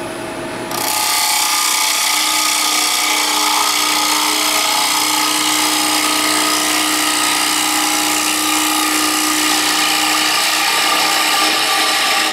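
Carbide-tipped hollowing tool, braced in a hollowing-system arm, cutting inside a wooden bowl spinning on a lathe. A loud, steady hiss of wood being cut sits over the hum of the lathe and starts about a second in.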